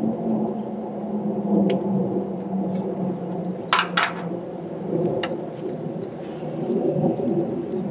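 A few sharp clicks and taps of hands and tools working at the idle air sensor and its connector on a Ford 302 V8, over a steady low rumble. A close pair of clicks comes about halfway through.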